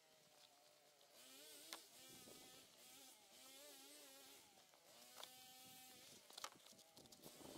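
Near silence: faint outdoor background with some faint wavering, whining pitched sounds and a couple of soft knocks.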